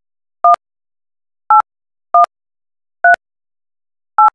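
Five short touch-tone (DTMF) beeps from a softphone dial pad, spaced unevenly half a second to a second apart: digits being keyed into an automated phone activation line. The tone pairs spell 1, 8, 1, 3, 8.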